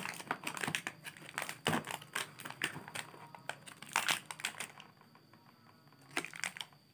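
Metallised plastic snack packet crinkling as hands pull it from a row of packets in a cardboard box and turn it over. The crackles are dense for the first four or five seconds, then only a few come near the end.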